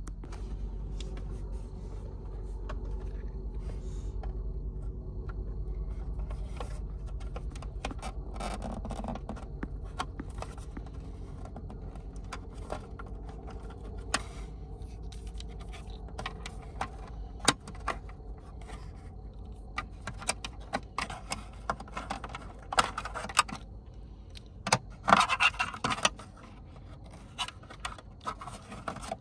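Hand tools working at plastic dashboard trim and wiring connectors: scattered sharp clicks and taps, with short scraping and rustling bursts, over a steady low hum. The clicks come more often toward the end, and the loudest scrapes are about two thirds of the way in.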